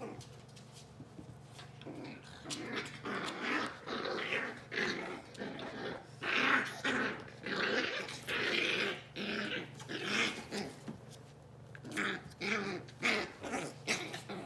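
Two Australian terriers, a puppy and her mother, play-wrestling and growling in a run of short, rough bursts that start about two seconds in.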